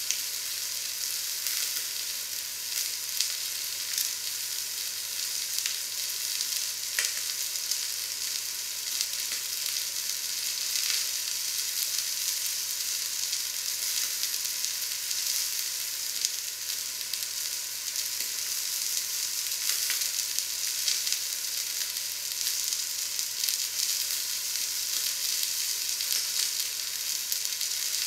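A piece of meat searing in a hot pan: a steady sizzle of fat and juices, dotted with small crackles and pops.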